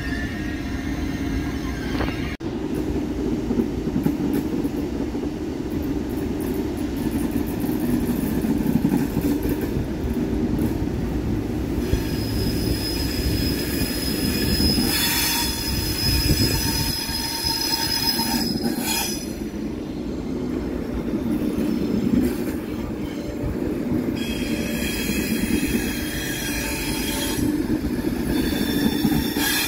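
Thalys high-speed trainset rolling past along the platform, with a steady low rumble. From about twelve seconds in, its wheels squeal in high, steady tones.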